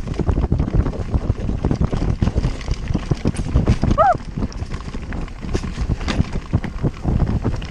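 Giant Glory downhill mountain bike clattering over rough trail at speed: rapid irregular knocks and rattles from the bike and tyres over a low rumble, with wind on the microphone. One brief squeal about four seconds in.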